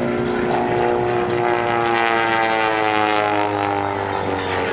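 A Pitts S-1S aerobatic biplane's four-cylinder Lycoming engine and propeller drone in flight. The pitch holds for about two seconds, then slides steadily lower.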